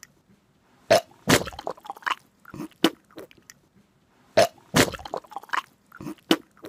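A person's voice making short, sudden non-speech noises in a sequence that repeats about every three and a half seconds.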